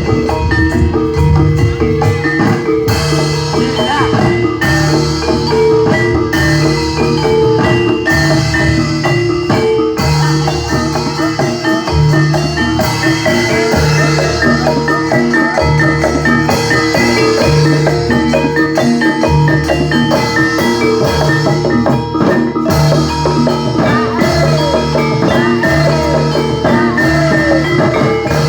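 Javanese gamelan music accompanying a jatilan horse dance: struck metal keyed instruments play a steady, repeating pattern over drums.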